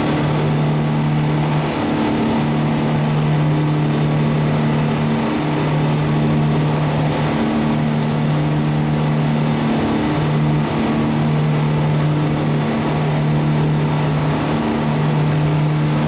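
Fishing boat's engine running steadily under way, a loud drone that dips briefly every two to three seconds.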